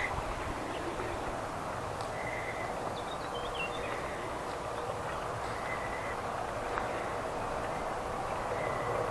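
Outdoor spring ambience: a steady rushing hiss with faint songbirds over it, short high call notes every couple of seconds and a brief twittering phrase about three seconds in.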